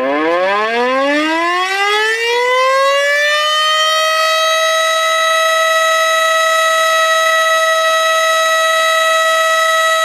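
Tornado warning siren winding up: its pitch rises steadily for about the first three and a half seconds, then holds one steady wail.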